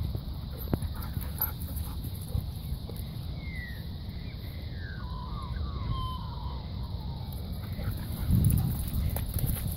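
A run of short calls, each falling in pitch, from about three seconds in to past the middle, over a steady low rumble. Near the end the rumble swells briefly.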